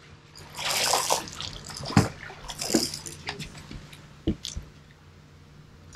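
A hooked fish splashing at the surface beside the boat as it is reeled in and swung aboard, with a couple of sharp knocks on the boat.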